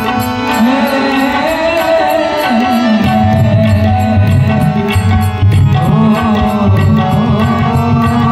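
A male voice singing a devotional bhajan melody with held, ornamented notes, over steady tabla accompaniment.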